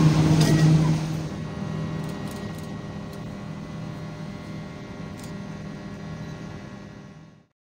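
Steady low hum of a CR200J Fuxing train standing at the platform. It is loud for about the first second, then drops sharply and fades out to silence near the end.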